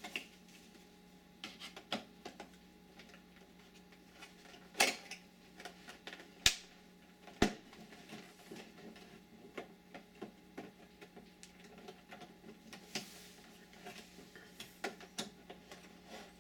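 Scattered light clicks and taps of hand tools and plastic parts being handled while a flat-screen TV is taken apart, with three sharper clicks about five, six and a half and seven and a half seconds in.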